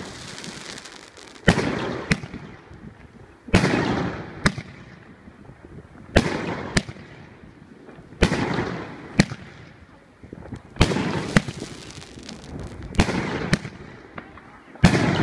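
Lucky Fireworks 724-shot mixed-calibre (30, 38 and 50 mm) fireworks cake firing at a slow, steady pace: a loud bang about every two seconds, each trailing off in a hiss, with a smaller sharp crack following each one.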